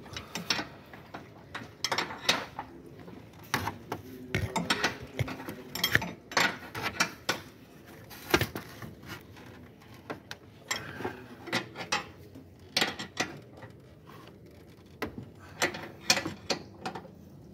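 Irregular metal clicks and clinks, with a few sharper knocks, from hand tools working on the bolts of a car's left engine mount.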